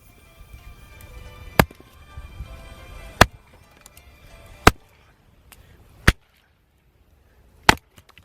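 Firewood being split with an axe: five sharp chopping blows, about one every second and a half.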